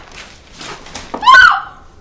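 A woman breathing hard in short gasps, then a short, high-pitched cry about a second in.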